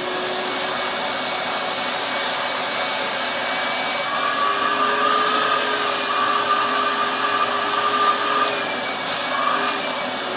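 Shop vac running steadily, sucking up sanding dust, with a steady motor whine. A higher whistle joins from about four to eight and a half seconds in.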